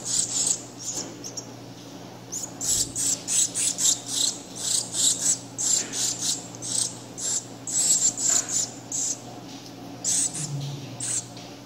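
Shiny cowbird nestling begging while being fed formula through a syringe and tube: a quick series of short, high calls, two to three a second, pausing about a second in and again near the end.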